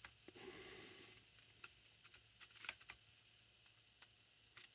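Near silence broken by a few faint, scattered light clicks and taps of small carburetor parts and a tool being handled, several of them close together a little after the middle.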